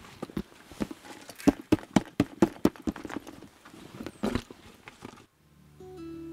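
A run of sharp knocks and taps, coming quickest and loudest about a second and a half to nearly three seconds in, with another about four seconds in. Near the end they stop and soft acoustic guitar music begins.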